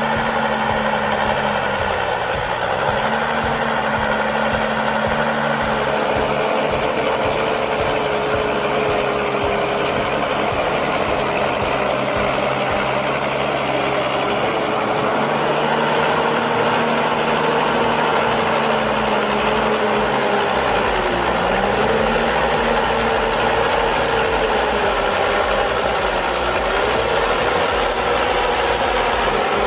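Heavy diesel engine of a forestry machine stuck in mud, running steadily and working to free itself. Its engine speed sags briefly a few times as it takes load.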